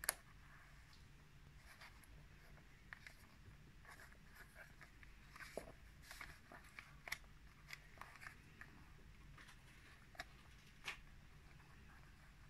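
Faint handling of a leather travel wallet: a sharp click right at the start as its metal clasp is opened, then scattered soft rustles and taps as cards and banknotes are moved in its pockets.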